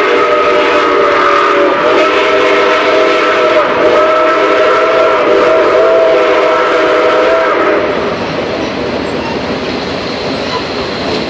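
Nickel Plate Road 765's steam whistle sounding a long chord, with a brief break about two seconds in, then cutting off about seven and a half seconds in. The steady rumble and clatter of the moving train runs underneath and is left alone once the whistle stops.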